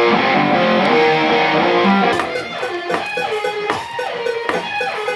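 Electric guitar music: held chords ring for about two seconds, then the playing turns to shorter, choppier notes with sharp attacks.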